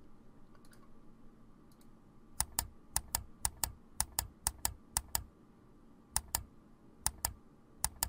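Recorded mouse-click sound effect, each a quick press-and-release double click, repeated about nine times at uneven intervals as the letters of a typing text animation pop in.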